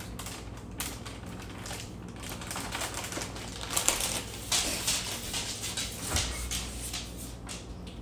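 Rustling and scattered light clicks from a plastic bag of shredded cheese being handled and closed, over a steady low hum.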